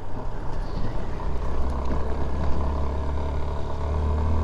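Motorcycle engine running steadily while riding a gravel road, its low note growing stronger about a second in.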